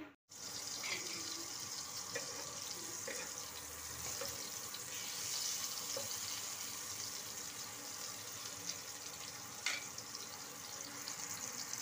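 Boiled, sliced mushrooms sizzling in hot oil in a kadai as a wooden spatula stirs them: a steady hiss, with light clicks about a second in and near the end.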